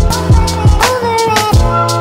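Background hip hop music with a steady drum beat and sustained melodic tones.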